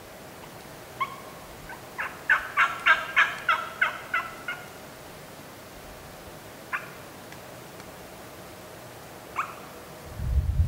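Turkey yelping: a run of about ten evenly spaced yelps, about four a second, with single notes before and after. A loud low rumble starts near the end.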